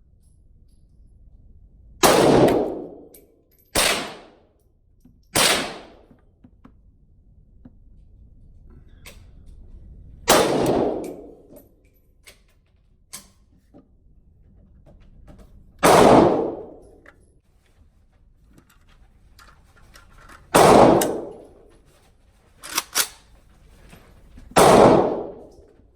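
Palmetto State Armory GF3 AK-47 rifle in 7.62x39 firing single, slow, irregularly spaced shots: seven loud reports, each with a short echoing tail. Between them are a few faint sharp clicks.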